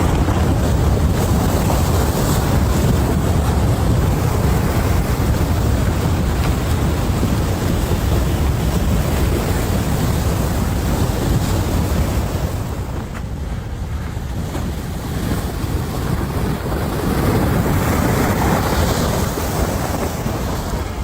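Strong wind buffeting the microphone: a loud, steady roar of rumbling noise that eases for a few seconds just past the middle and then builds again.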